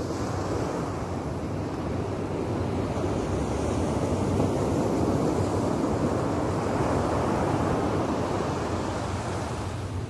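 Small sea waves breaking and washing up a sandy beach: a steady rush of surf that swells louder in the middle and eases again near the end.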